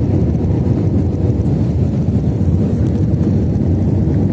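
Steady low rumble of a jet airliner's turbofan engines and rushing air, heard from inside the cabin on final approach to land.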